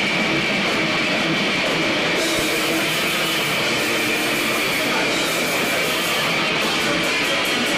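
Heavy metal band playing live: a loud, steady, dense wash of electric guitar and drums.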